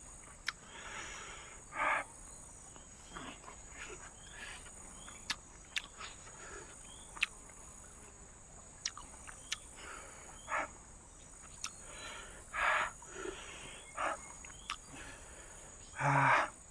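Night insects, crickets, chirring in a steady high-pitched drone, with scattered short scratchy noises and sharp clicks close by.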